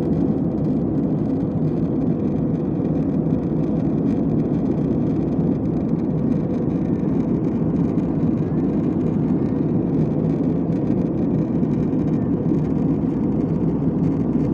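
Steady cabin noise inside a Batik Air jet airliner in flight: an even, low rumble of engines and rushing air that does not change.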